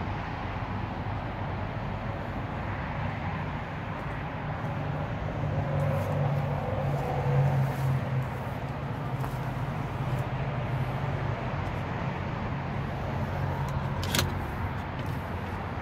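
Arctic Cat Wildcat X side-by-side's 951 cc V-twin engine idling steadily, a little louder for a few seconds about halfway through. A single sharp click comes near the end.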